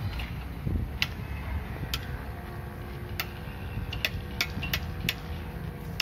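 JCB 3DX backhoe loader's diesel engine idling steadily, with sharp ticks roughly once a second.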